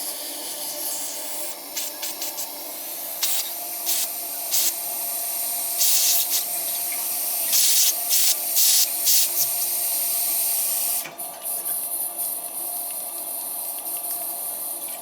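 Hot-water boiler system being refilled: a steady hiss of water and air rushing through the piping and vents, with several louder spurts in the middle and a change in the hiss about two-thirds of the way through.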